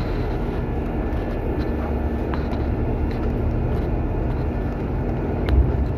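Steady low rumble of a bus in motion, heard from inside, with a faint steady hum, a few light clicks and a louder knock about five and a half seconds in.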